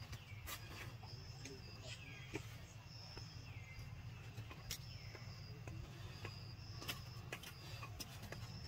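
Outdoor wildlife ambience: a short high call and a short falling call repeat in turn about every second and a half over a low steady hum, with scattered faint clicks.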